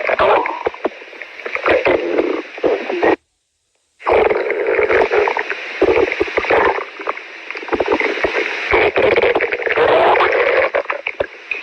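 Stomach growling and gurgling, loud and continuous with many short pops, breaking off into silence for under a second about three seconds in.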